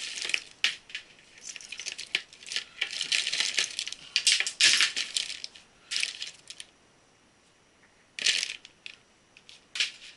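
Cables and small hardware rattling and clinking as they are rummaged through and handled: irregular runs of clicks and rustles, busiest in the middle, with a pause near the end followed by a few more clatters.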